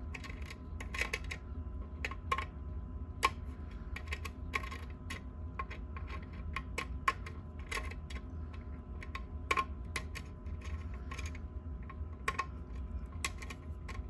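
Irregular small clicks and taps of a screwdriver working the screw terminals of a 3D printer mainboard's power terminal block, over a steady low hum.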